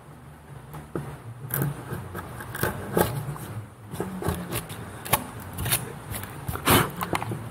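Japanese chisel hand-pared into soft ginkgo (icho) wood, taking thin slivers from the wall of a recess: an irregular run of short, crisp scraping cuts, one or two a second.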